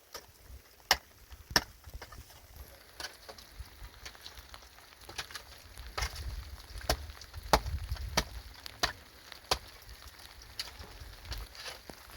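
Repeated sharp chopping strikes, about one every two-thirds of a second, with a steady pace.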